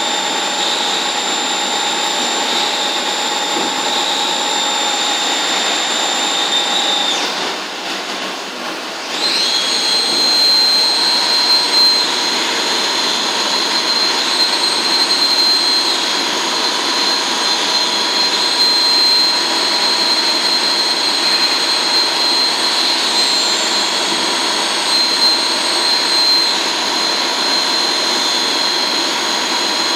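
Biglia B470 YMS Quattro CNC lathe running, with a steady high whine over a noisy rush. About seven seconds in the whine cuts out and the sound drops; some two seconds later it rises again and settles at a slightly different pitch.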